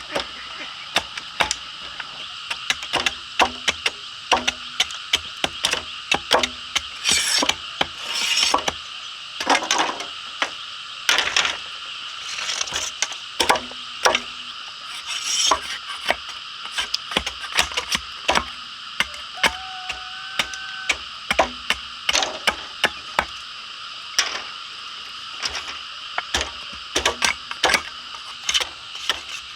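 Bamboo being worked by hand, with irregular knocking and tapping at an uneven pace over a steady high-pitched drone. A brief held note sounds about two-thirds of the way through.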